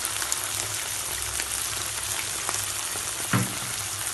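Vegetables and sauces frying in a pan: a steady sizzle with fine crackles, and a single knock near the end.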